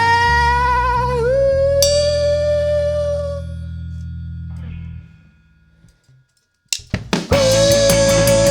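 A rock band playing live. A long held note over a sustained bass fades away, and about five seconds in the music drops to near silence for about a second and a half. A few drum hits then bring the full band back in, with a held note and steady cymbal strokes.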